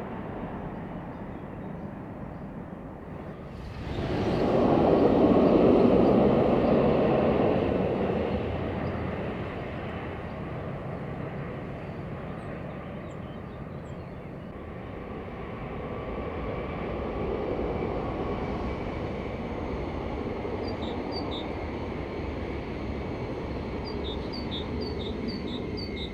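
Electric train running along the line with a steady rolling rumble. It swells loud about four seconds in, eases off over the next few seconds, and rises gently again later. A small bird chirps a few times near the end.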